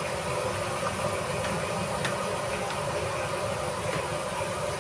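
Steady hiss and hum of a working kitchen, with a few faint clicks and clinks of utensils.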